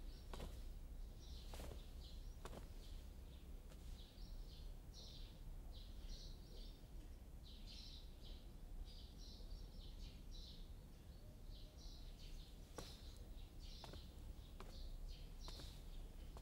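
Small birds chirping faintly and often, in quick clusters of short high calls, over a steady low background hum, with a few soft clicks.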